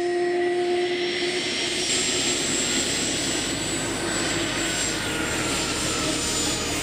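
Gulfstream G200's twin turbofan engines running at taxi power as the jet rolls toward the listener, a steady rush of jet noise with a high thin whine that grows louder about two seconds in.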